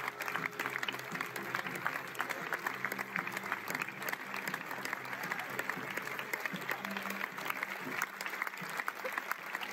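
A cinema audience applauding steadily, with music playing underneath.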